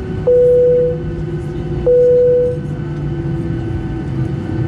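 Airliner cabin chime sounding twice, single mid-pitched tones about a second and a half apart, each fading quickly, over the steady hum of the aircraft cabin.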